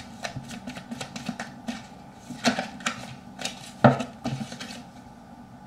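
Computer keyboard being typed on: quick, irregular key clicks with one louder knock near four seconds in, stopping about five seconds in.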